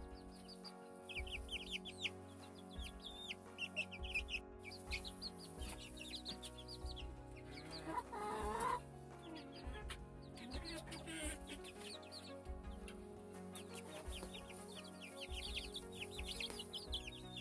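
Young chickens peeping: many quick, high, falling peeps coming in bursts, over background music with steady held notes. A brief, louder scratchy sound comes about eight seconds in.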